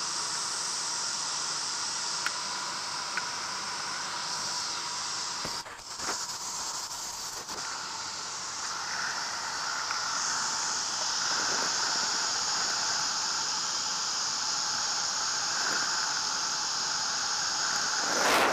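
Steady rush of airflow over a wing-mounted camera on a Marquart MA-5 Charger biplane in flight: a hissing wind noise with a faint steady whine. It dips briefly about six seconds in and swells louder for a moment near the end.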